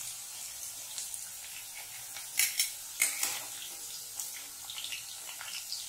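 Hot oil sizzling in a kadai as fried potato cubes are scooped out with a perforated metal skimmer, with clinks and scrapes of the skimmer, the loudest two about two and a half and three seconds in.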